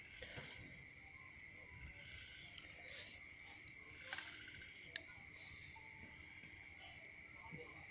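A steady, high-pitched chorus of crickets and other night insects, sounding at several pitches at once. A few faint clicks come through near the middle.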